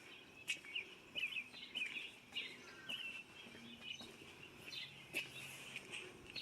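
Small songbirds chirping and twittering in quick, short calls, with a few light clicks mixed in.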